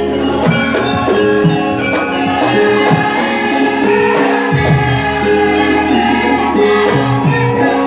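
Music with a steady beat, bass and percussion, and a singing voice.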